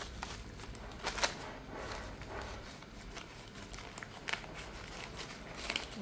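Brown kraft-paper bag and a paper slip being handled and unfolded by hand: faint, intermittent rustling and crinkling, with a few sharp paper crackles.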